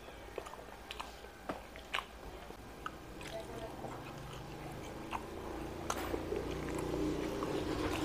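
Close-up mouth sounds of a person eating with their hands: chewing and lip smacks with small sharp clicks. From about halfway a low, steady engine drone grows louder and becomes the loudest sound by the end.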